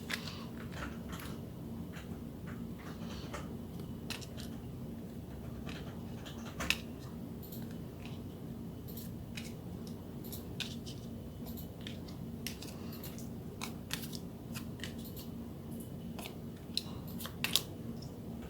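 Photocards being sorted and handled by hand: irregular light clicks, taps and slides of card on card and on the table, over a steady low hum. The sharpest clicks come about a third of the way in and near the end.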